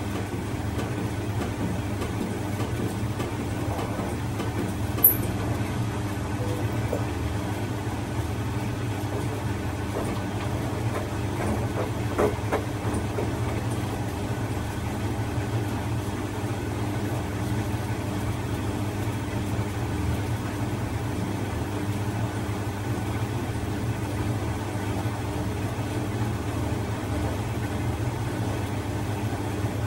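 A Bosch front-loading washing machine running with a steady low hum, the machine that will not go into its spin. There is a sharp click about five seconds in and a fainter knock a few seconds later.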